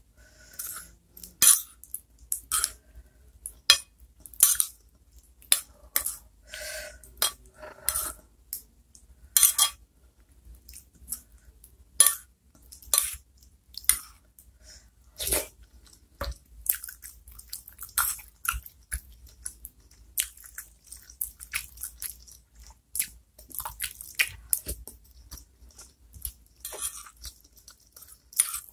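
A metal spoon clinks and scrapes against a ceramic plate while scooping small chicken meatballs in chili broth. The irregular sharp clinks are interspersed with close-miked chewing and wet mouth sounds.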